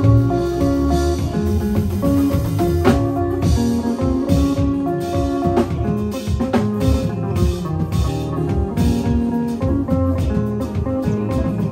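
Live band jam: a drum kit played with sticks, with frequent drum and cymbal hits, under an amplified electric guitar playing held notes with a strong low end.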